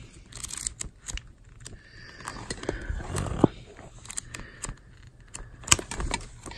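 Pages of a spiral-bound coin price guide being leafed through by hand: paper rustling and sliding, with several sharp ticks as pages are flicked.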